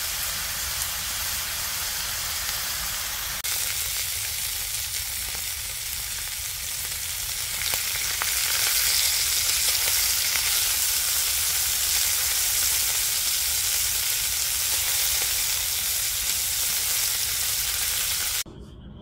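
Beef sirloin sizzling in hot fat in a cast-iron skillet on a wood stove, a dense steady sizzle. It grows louder about halfway through as the meat is cut and turned with tongs, then cuts off just before the end.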